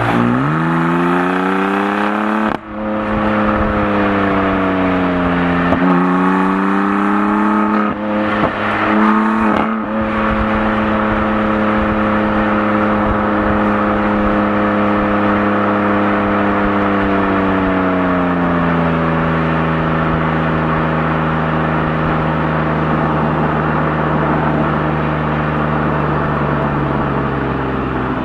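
BMW M4 Competition's twin-turbo inline-six accelerating, its revs rising and dropping sharply at two upshifts in the first six seconds, then settling to steady cruising revs. About two-thirds through another upshift drops it to lower, steady revs.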